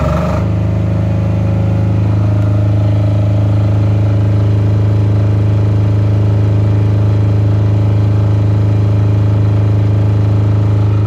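Genki GK9000DS3 silent-canopy diesel generator, with its 186F single-cylinder air-cooled diesel engine, running steadily at governed speed just after starting. It settles from the start into an even run within the first half second.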